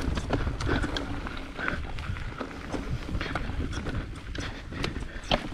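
Nukeproof Giga mountain bike rattling over rough singletrack, with tyres and frame knocking irregularly on rocks and roots. A steady low wind rumble sits on the action-camera microphone underneath.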